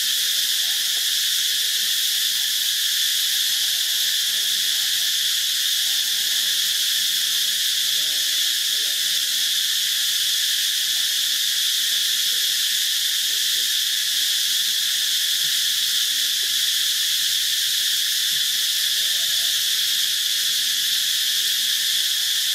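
Steady, high-pitched drone of a chorus of insects, holding the same level throughout.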